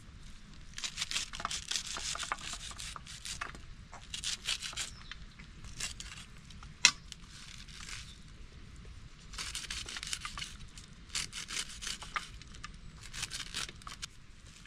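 Squash shoots being torn and stripped by hand: repeated bursts of tearing and crackling, with one sharp snap about seven seconds in.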